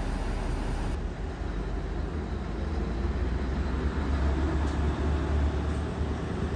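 Deep, steady rumble of a large vehicle running, heaviest in the bass and swelling a little toward the end.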